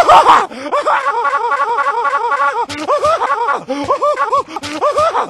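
Patrick Star laughing in short, high giggles, very rapid and evenly repeated for a couple of seconds, then in more spaced-out bursts. A brief loud noisy burst comes right at the start.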